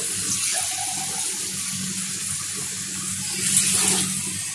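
Meat stock (yakhni) poured steadily from a bowl into a pot of tikka masala, splashing into a steel glass held in the pot, a little louder near the end.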